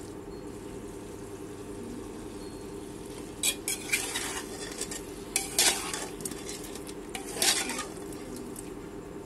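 A perforated steel spatula stirs potatoes and masala in a pressure cooker over a steady sizzle, scraping and clinking against the pot a few times: about three and a half seconds in, near the middle, and about seven and a half seconds in.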